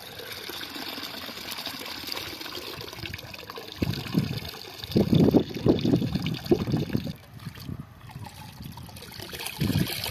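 Water being poured off raw chicken pieces in a metal bowl as they are rinsed in lake shallows: a steady trickle, with a run of louder splashes in the middle and again near the end.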